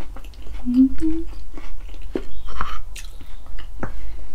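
A person chewing a mouthful of food close to the microphone, with wet smacking and clicking mouth sounds and a brief hum about a second in.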